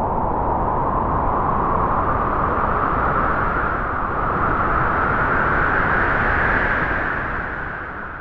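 Wind blowing in one long gust: a steady rushing noise whose pitch rises slowly, then eases off near the end.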